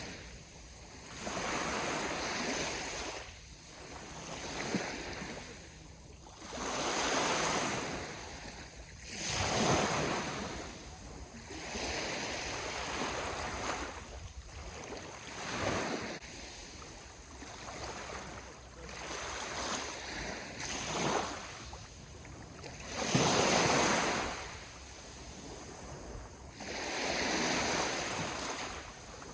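Sea waves washing onto the shore one after another, each surge swelling and falling away every two to four seconds.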